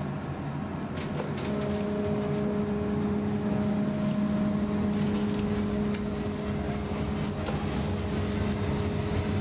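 Göteborg M31 tram pulling away from a stop, heard from inside the car: a steady electric hum of several tones sets in about a second and a half in, over the low rumble of the running gear, and grows a little louder as it gets under way.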